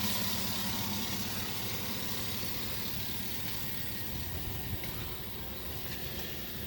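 2009 Chevrolet Suburban's 5.3-litre V8 idling steadily, with a slight misfire on cylinder 6 that makes the idle rough; the mechanic takes it as more than likely needing ignition coils, spark plugs and wires.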